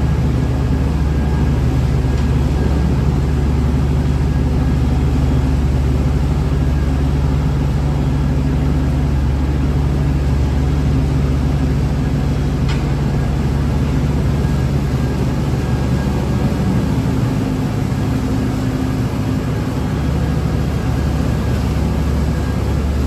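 Heavy farm machinery engine running steadily at a constant speed, with a single sharp click about halfway through.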